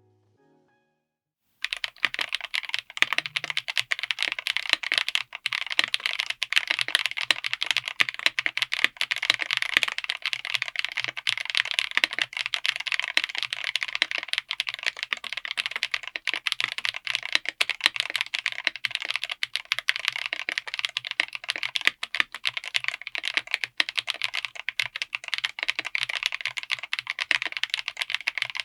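Mechanical keyboard fitted with Chosfox Poison Gas tactile switches, on an FR4 plate in an aluminium case, being typed on fast and continuously. It makes a dense, unbroken run of key clacks that starts about a second and a half in, after a brief silence.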